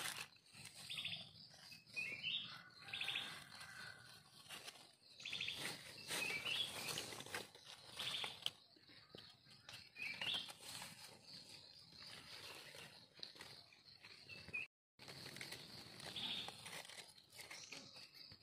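Dry leaf litter rustling and crackling as a hand and knife work through it to uncover mushrooms on the forest floor, with short bird chirps and trills every few seconds.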